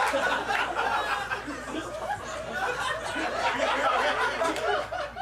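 Audience laughing, loudest at the start and dying down.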